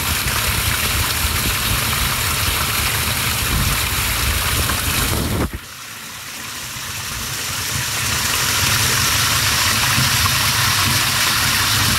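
Water gushing out of an IBC tote through a 2-inch outlet pipe as the tote drains at roughly 60 gallons a minute, with a steady low hum underneath. The sound drops off abruptly about five and a half seconds in, then builds back up over the next few seconds.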